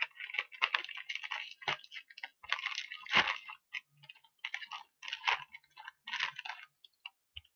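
Plastic potato chip bag crinkling and crackling as its sealed top is pulled open by hand, in uneven bursts with a sharper crack about three seconds in.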